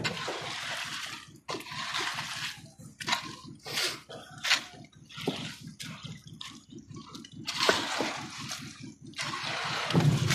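Wet, sloppy concrete being pushed and spread with a long-handled T-shaped scraper: repeated sloshing, scraping strokes of about a second each, over a steady low rumble.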